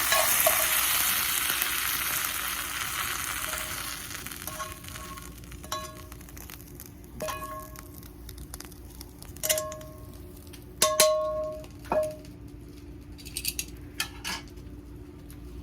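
Beef and garlic scapes sizzling in a frying pan, the sizzle dying away over the first few seconds. Then come about six light clinks of a utensil on cookware, each with a short ringing tone.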